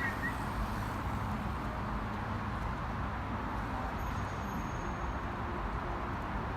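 Steady road-traffic noise, an even rumble and hiss with no distinct events. A faint high whine sounds briefly about four seconds in.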